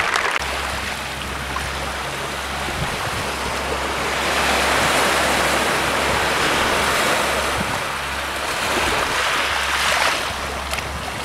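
Small sea waves breaking and washing up over a sand and pebble shore, the wash swelling about four seconds in and again near ten seconds, over a steady low rumble of wind on the microphone.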